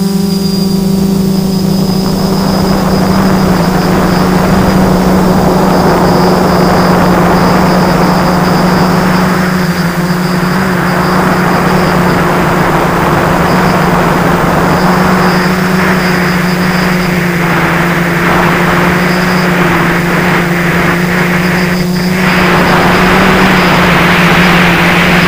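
FPV multirotor drone's electric motors and propellers humming steadily at one pitch, with a rush of air noise that builds about two seconds in and grows louder near the end.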